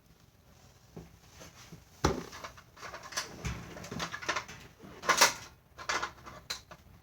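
Hands working a putty slime: irregular sticky squishes and clicks. They start about a second in and are busiest from about two seconds on, with a few louder pops.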